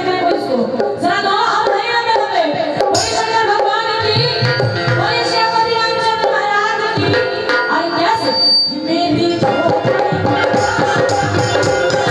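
Live devotional band music for a Bhojpuri bhajan: hand drums keep up a quick, dense rhythm under a melody line that glides and holds notes.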